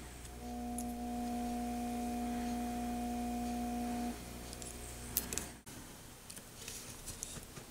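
Vacuum pick-up pen's pump running with a steady humming tone that stops about four seconds in, over a deeper hum that cuts off suddenly a little later. A sharp click and light ticks of tweezers on a small circuit board follow.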